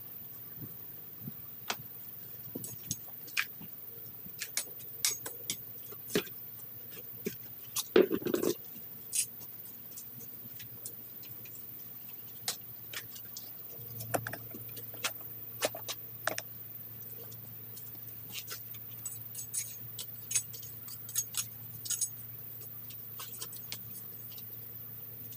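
Hand-weeding in wood-chip mulch: irregular scratching, rustling and sharp little clicks as gloved hands and a small metal hand weeder dig and tear out weeds, with a louder crunching rustle about eight seconds in.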